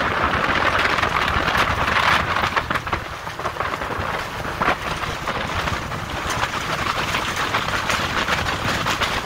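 Skiff running over choppy water: a steady rush of wind and water against the hull, with a few sharper slaps.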